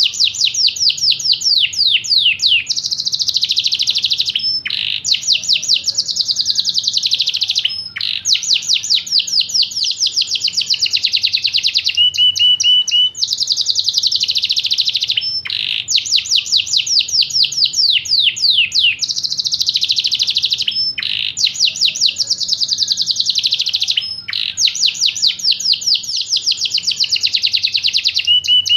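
Yorkshire canary singing a long, continuous song of fast trills and rolls, high-pitched, changing phrase every few seconds with brief pauses between phrases.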